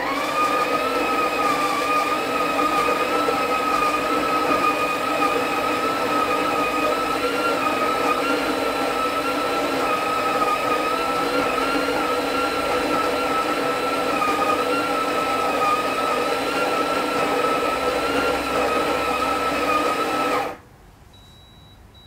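Gevi GECGI406B-U burr coffee grinder grinding coffee beans, a steady high whine that wavers slightly. It cuts off suddenly after its 20-second timed run, and a short high beep follows, signalling the cycle is complete.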